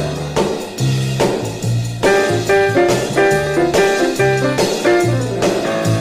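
Up-tempo dance music playing from a vinyl record, with a steady drum beat, a bass line and sustained keyboard or horn notes.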